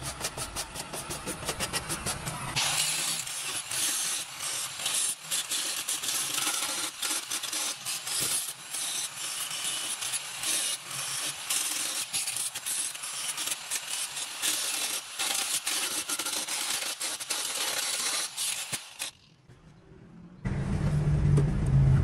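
Hand wire brush scrubbing fresh welds on a steel rocker panel in quick strokes. About three seconds in, an angle grinder takes over, grinding down the weld seams with a steady high scraping, and it stops near the end. A different sound with a low hum starts just before the end.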